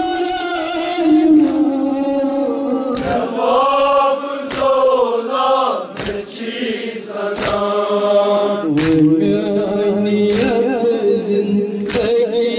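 A group of men chanting a mourning lament (noha) together, with a sharp slap of hands on chests (matam) about every second and a half.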